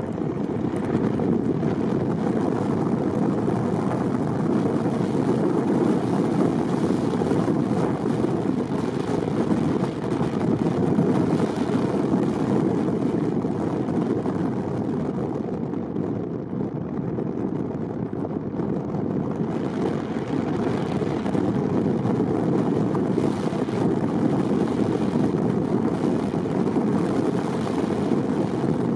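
Steady road and engine noise of a moving car: an even, low rumble with no breaks.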